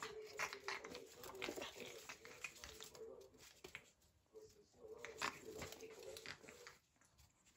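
Two pug puppies play-fighting on a tiled floor: quick scuffling and clicking of paws and claws on the tiles, with short, pitched vocal sounds from the puppies over it. The activity dies down near the end.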